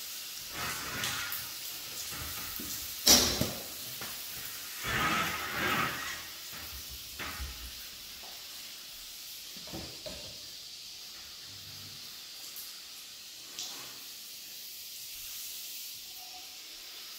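Hand cleaning of a glass shower: rubbing, wiping and rustling in irregular bursts over a steady faint hiss, with one sharp knock about three seconds in.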